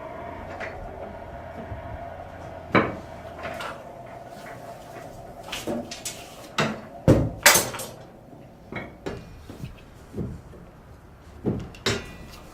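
Irregular metal knocks and clanks from a blacksmith working at the forge and anvil, about nine sharp strikes spread unevenly, a couple of them bright and ringing. A steady hum runs for the first few seconds and then fades.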